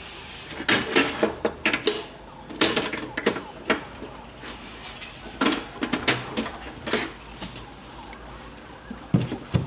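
Irregular rustling, scratching and knocking of objects being handled, coming in several short flurries.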